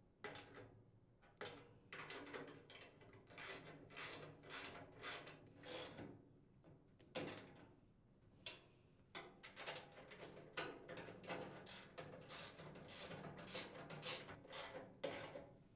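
Wrench and socket working steel nuts onto bolts on a sheet-steel hopper: a long run of quiet, quick metallic clicks and rattles with a couple of short pauses.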